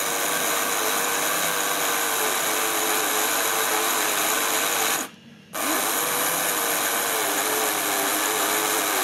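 The electric motor of an old Hornby OO-gauge locomotive whirring as it spins the driving wheels against a Peco wheel-cleaning brush, with the brass wire brush scrubbing the wheel treads. The motor's pitch rises and falls as the contact varies, and it cuts out for about half a second around five seconds in, then speeds back up.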